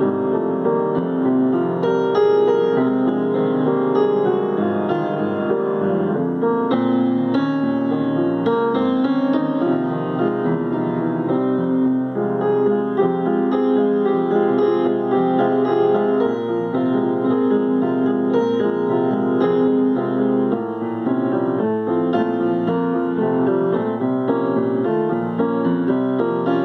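Piano played continuously, a flowing stream of notes and chords without pauses.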